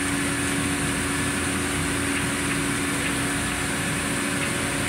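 Steady drone of running machinery on a fishing boat's deck during unloading, with a constant low hum and a thin high whine, plus a few faint ticks.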